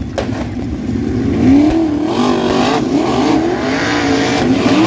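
360 sprint car V8 engines rolling past in a slow pack, their engine notes rising and falling in pitch, several cars at once.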